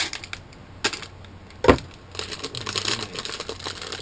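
Handling of objects on a table: a sharp click just under a second in, a louder knock near the middle, then a run of light rattling and crinkling.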